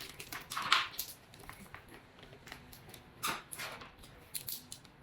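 Rustling and scattered light clicks of cable and connector heads being handled.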